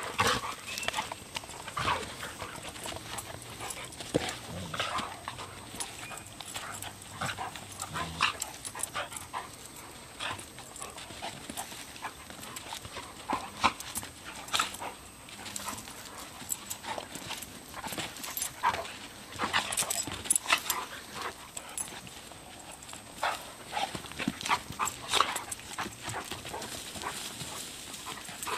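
Two dogs play-wrestling: short, irregular bursts of dog sounds and scuffling, some louder than others.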